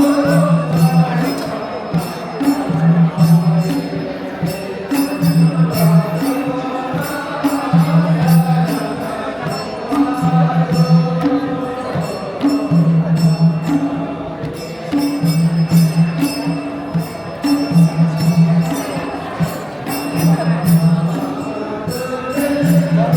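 Traditional Gurung folk song accompanying a dance: voices singing over a low drum beat that repeats about once a second, with a light jingling percussion on top.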